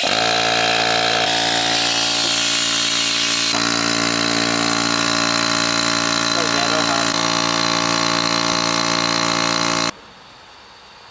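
A motor-driven machine running with a steady, loud drone that starts abruptly and cuts off suddenly near the end.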